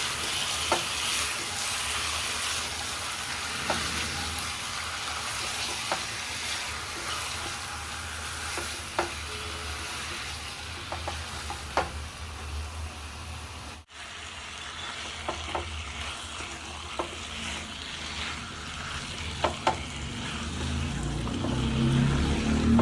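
Chicken sizzling as it fries in a pan and is stirred, with occasional sharp clicks of the spoon against the pan. The sizzle breaks off for an instant about two-thirds of the way through, and a louder low sound builds near the end.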